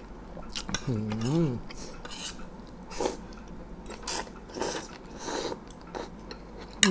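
Spoon and fork scraping and clinking against a plate during eating, in a handful of short strokes. A brief hum from a voice comes about a second in.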